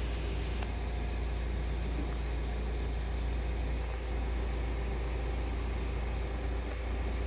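Steady low mechanical hum with a deep rumble underneath, unchanging throughout.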